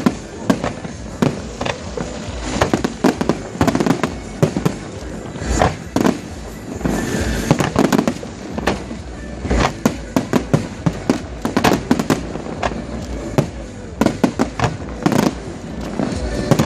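Aerial fireworks bursting in quick, irregular succession: many sharp bangs, often several a second, over a steady background din.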